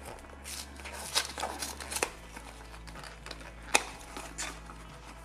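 Small printed cardboard box being opened by hand: the tucked flap worked loose and the carton folded open, with scattered papery scrapes and clicks, the sharpest just under four seconds in.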